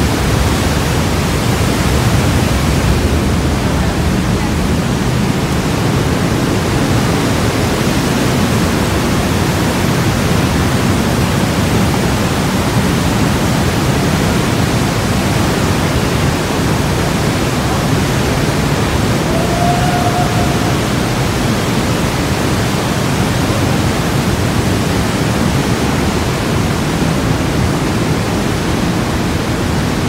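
Waterfall pouring through a narrow rock gorge: a loud, steady rush of water. A brief faint tone rises above it about two-thirds of the way in.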